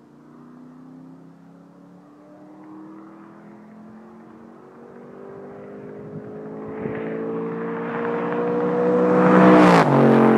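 Ford Mustang Mach 1's four-valve V8, breathing through SLP long-tube headers, a catted H-pipe and Magnaflow mufflers, in a high-speed fly-by at about 110 mph. The exhaust note grows steadily louder and climbs slowly in pitch as the car approaches, then drops sharply in pitch as it passes, near the end.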